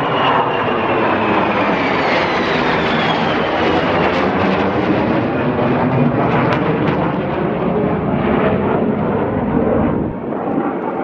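Two military fighter jets flying over: loud jet engine noise, with a whine that falls in pitch as they pass.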